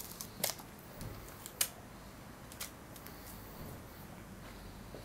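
Masking tape being torn and handled: a few short, sharp rips and crackles, the loudest about a second and a half in, over a low background.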